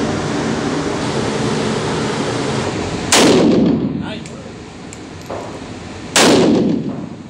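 Two rifle shots about three seconds apart, each with a long echoing tail in an indoor range, and a few faint clicks between them. Before the first shot there is a steady rushing noise.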